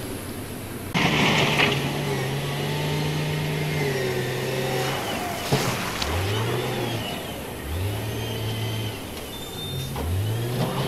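Wheel loader's diesel engine running under load and revving up three times, with rising pitch about six, seven and a half and ten seconds in. A sudden rush of noise sets in about a second in.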